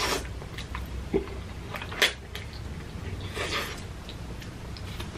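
Close-miked eating sounds of a mouthful of creamy fettuccine alfredo: the noodles drawn into the mouth at the start, then wet chewing with a couple of sharp mouth smacks about one and two seconds in.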